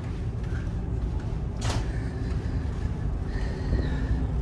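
Steady low rumble of the ship's machinery heard in a lowest-deck corridor, with a single sharp knock about a second and a half in.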